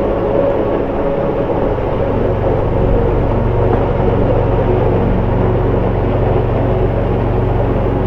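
Waterfall pouring onto and around a GoPro held right in the spray, a steady, deep rush of falling water.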